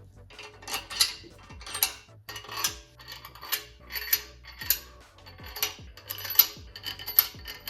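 Socket ratchet snugging down the oiled main brace bolts on an RB20DET block, in repeated short strokes with the pawl clicking, a little more than one stroke a second.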